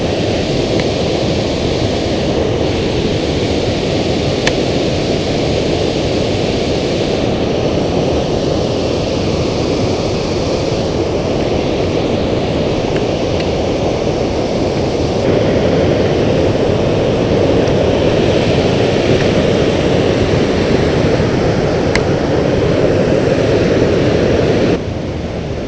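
Steady rush of water pouring over a river spillway, a little louder from about halfway through, with a few faint clicks.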